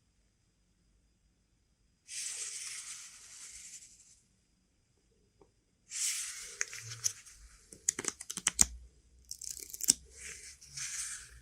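Phone box packaging being torn open and crinkled: two stretches of rustling tearing noise, the second with a run of sharp clicks and taps.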